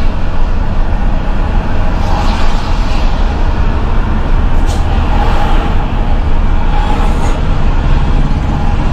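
Intercity coach bus's diesel engine running steadily with a deep drone, mixed with road noise, heard from inside the bus.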